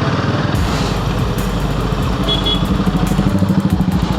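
Royal Enfield Himalayan 450's single-cylinder engine running under way, its note growing louder about three seconds in.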